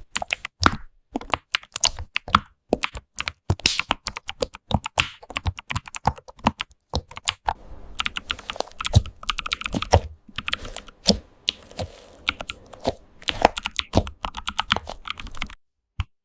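Computer keyboard typing: quick, irregular key clicks in runs, with a couple of brief pauses.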